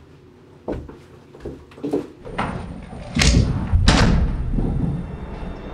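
A few light knocks, then two heavy slams about three and four seconds in, over a low rumbling drone that carries on after them.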